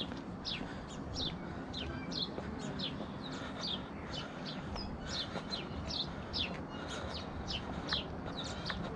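Birds chirping over and over: short, high notes that drop in pitch, about two a second, over a low steady background rumble.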